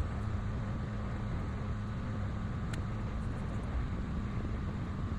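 Steady low background hum with a faint constant high whine, and one faint tick about three seconds in.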